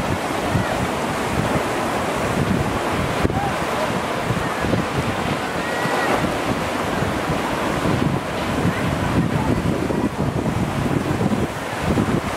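Strong, gusty wind from a puting beliung whirlwind storm blowing hard and buffeting the microphone, a continuous loud rushing noise with a fluttering low rumble.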